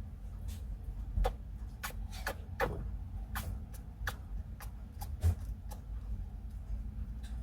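Golden hamster making sharp, irregular clicking sounds while it eats, about fifteen clicks spread unevenly, a few with a brief squeaky tone. The owner has heard this noise from it since it was young and thinks it is not a cold, since the hamster is otherwise healthy.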